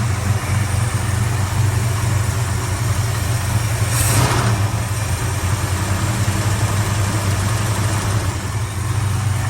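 Valiant VH Charger engine idling steadily, newly restarted and running better now that fuel is reaching the carburettor. A short burst of hissing noise cuts in about four seconds in.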